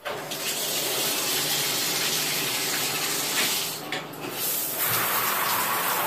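Shower turned on: water starts spraying from the showerhead and runs as a steady hiss of falling water, dipping briefly about four seconds in.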